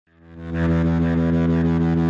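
Background intro music fading in over the first half second, then holding low sustained notes with a quick, steady beat.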